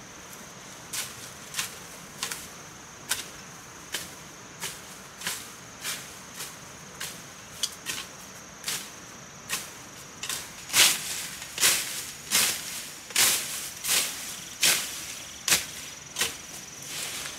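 Rhythmic swishing chops of a machete-type blade cutting through brush and ferns, about one and a half strokes a second, growing louder about ten seconds in. A faint steady high insect drone runs underneath.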